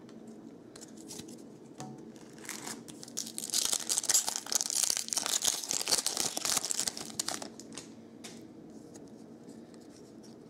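Foil wrapper of a hockey card pack being torn open and crinkled by hand: a dense crackling rustle from about three seconds in to about seven and a half. Lighter rustles and clicks come before and after it as the pack is picked up and the cards are handled.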